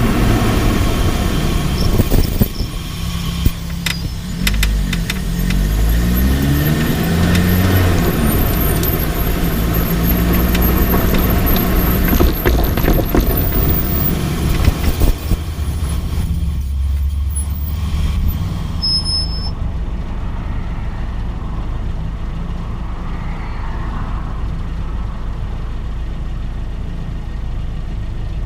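Lotus Elise being driven, heard from its front left suspension: a steady low rumble of road and running gear, with the engine note rising and falling a few seconds in and a few short sharp knocks scattered through the first half.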